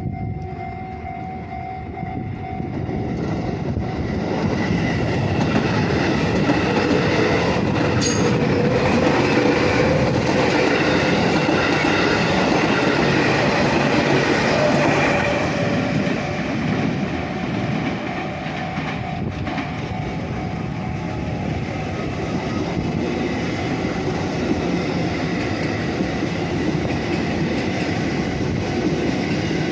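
JR Central 311-series and 313-series electric trains passing at a level crossing: a steady rush of wheels on rail with clacking over the rail joints, building from a few seconds in, loudest for about ten seconds, then running on a little lower. The crossing's warning bell rings at the start.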